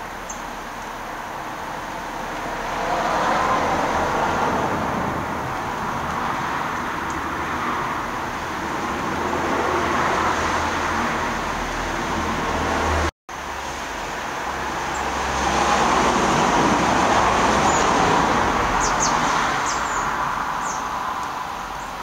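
Road traffic passing: cars swell and fade one after another over a low rumble. About two-thirds through, the sound cuts out for a moment, and a few faint high chirps come near the end.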